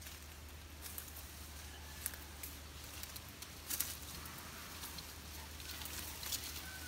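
Faint scattered crackling and rustling of dry leaf litter and twigs in forest undergrowth, with a slightly louder cluster of clicks about halfway through.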